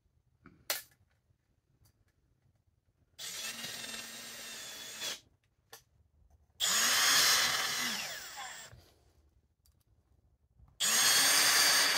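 Cordless drill driving half-inch self-tapping screws through an acrylic panel into wood: three separate runs of motor whine, each a couple of seconds long, with pauses between. A short click comes before the first run.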